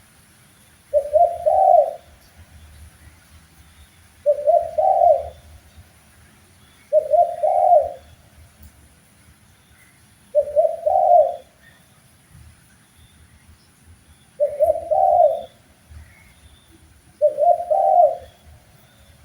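Spotted dove (tekukur) cooing: six short, separate phrases about three seconds apart, each a quick run of low, rolling coos.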